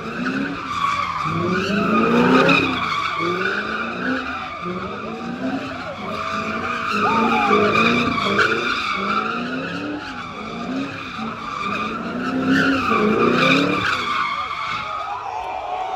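A car spinning donuts, its rear tires screeching steadily as the engine revs climb and drop again and again.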